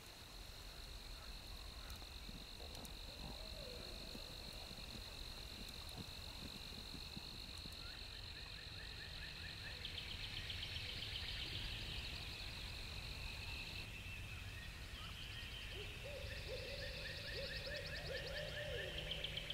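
Night insects calling in the forest: a steady high-pitched trill, joined about ten seconds in by faster pulsing trills. A few lower animal calls come around three seconds in and again near the end.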